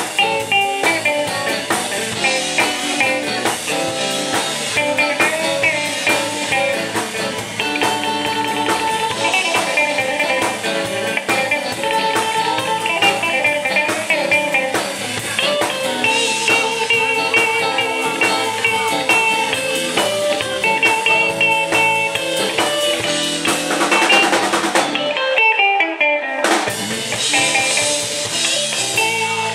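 Live electric blues band playing an instrumental passage: electric guitar lead lines over drums and the rest of the band. About 25 seconds in the band drops out for a moment, then comes back in.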